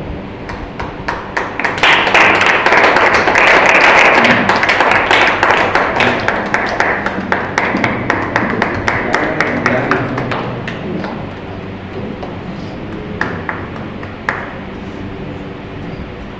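Audience applause: scattered claps at first, swelling into full clapping about two seconds in, then thinning out and fading by about ten seconds, with a couple of lone claps near the end.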